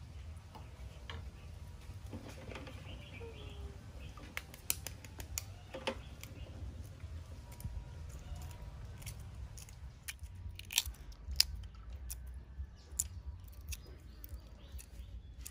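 Hard-boiled chicken eggs having their shells cracked and peeled off by hand over a steel bowl of water: scattered sharp crackling clicks, coming thickest in the last few seconds.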